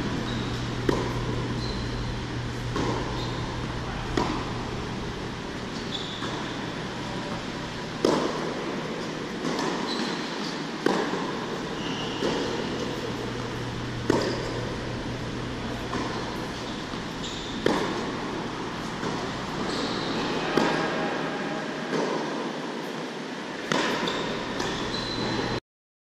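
Tennis balls struck by rackets and bouncing during a rally on an indoor hard court, a sharp echoing hit every couple of seconds, with short high squeaks of tennis shoes on the court surface and a steady low hum throughout. The sound cuts off just before the end.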